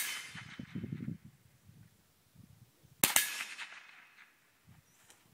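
Semi-automatic rifle firing two shots, one right at the start and another about three seconds in, each sharp crack trailing off in a short echo.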